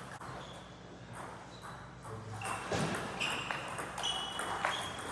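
Table tennis balls clicking off paddles and tables, single sharp pings that come sparsely at first and more often from about halfway through as a rally starts.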